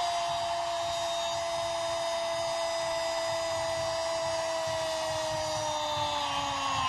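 Football commentator's long held "gol" shout, one sustained note sliding slowly down in pitch and dropping near the end, over stadium crowd noise.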